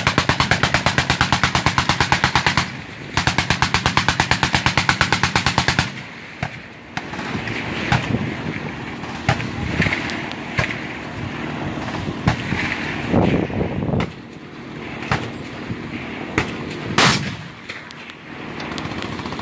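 Two bursts of full-automatic machine-gun fire, about eight rounds a second, each close to three seconds long, then scattered single gunshots.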